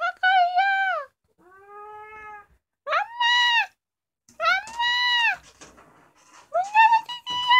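Two-year-old female house cat meowing over and over: about five long meows, each rising then falling in pitch, with a fainter, lower one early in the run. She is crying to have a door opened.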